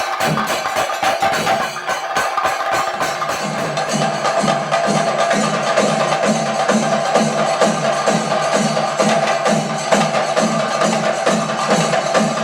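Thayambaka on chenda drums: fast, dense stick strokes on the drumheads, with the steady ring of ilathalam hand cymbals. About four seconds in, the playing settles into a regular pulse of deeper strokes, a little over two a second.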